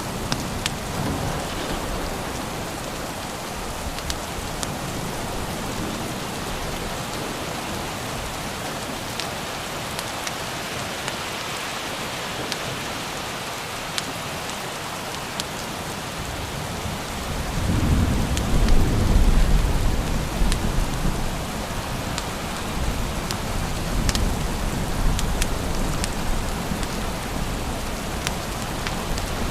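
Steady rain falling, with scattered sharp ticks through it. A low roll of thunder swells about seventeen seconds in and dies away over a few seconds, followed by a softer rumble.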